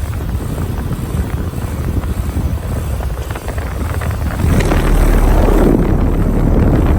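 Outdoor air conditioner condenser unit running and shaking like crazy, its cabinet rattling with a heavy low rumble. It gets louder about four and a half seconds in.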